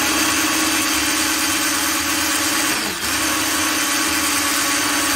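Electric hand mixer running steadily, its beaters whisking cocoa cake batter in a glass bowl, with a brief dip in the motor's hum about three seconds in.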